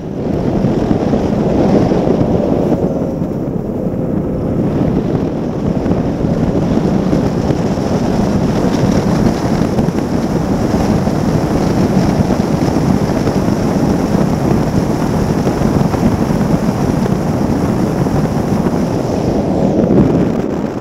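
Formula One tunnel-hull powerboat running at racing speed, heard from on board: the outboard engine's steady drone under a heavy rush of wind on the microphone and water spray off the hull.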